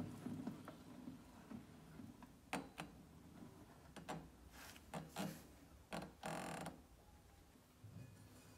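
Washing machine drum turned by hand by its three-spoke pulley, giving faint scattered mechanical clicks and knocks from the drum shaft and mounting. The owner takes the drum for bent.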